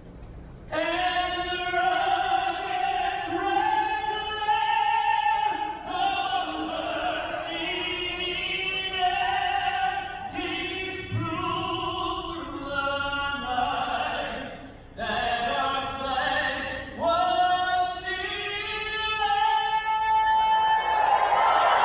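A solo singer performs the national anthem through a basketball arena's sound system, in slow phrases of long held notes that echo around the hall. Near the end the crowd starts cheering over the final held note.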